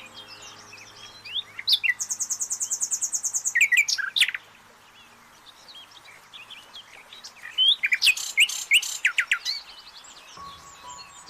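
Songbirds chirping and calling with short sweeping notes, including a fast high trill about two seconds in that lasts a second and a half, and a dense run of calls around eight seconds in. Faint steady low tones are present near the start and again near the end.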